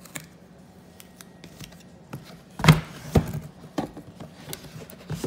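A cardboard gift box being opened by hand: scattered light clicks and paper scrapes, then two loud knocks a little past halfway as the lid comes off.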